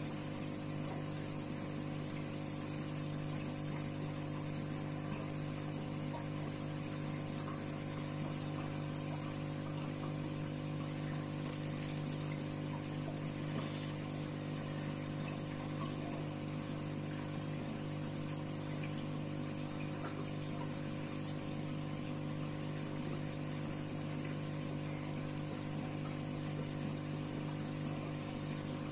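Aquarium filter pump running: a steady electrical hum with water trickling, and a steady high-pitched whine.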